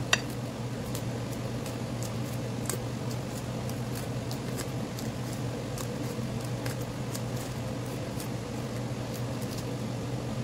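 Scissors snipping through green chili peppers: short, crisp snips about twice a second, the loudest right at the start, over a steady low hum.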